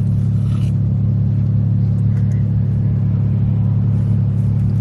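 Steady low drone of a car heard from inside the cabin, an even engine and road rumble with no change in pitch, and a few faint light clicks.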